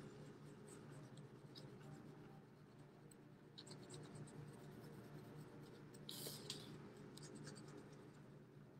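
Felt-tip marker scribbling on a paper plate in quick back-and-forth strokes, faint, colouring in a shape.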